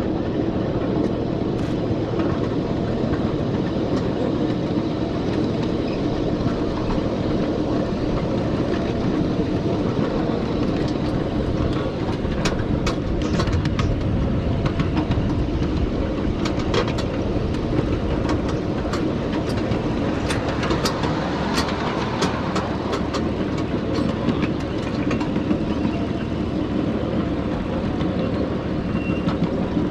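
Miniature 7½-inch-gauge riding train rolling along its track: a steady rumble with a low hum, and wheels clicking on the rails, most often through the middle of the stretch.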